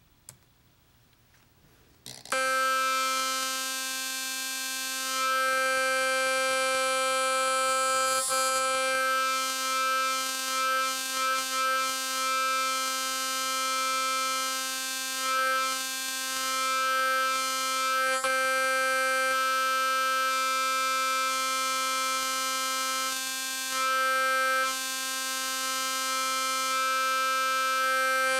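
Chrome trumpet air horn sounding one steady note, fed through an electro-pneumatic pressure regulator that follows MIDI expression (CC11) values. It starts abruptly about two seconds in, and its loudness dips and swells several times through the middle while the pitch holds.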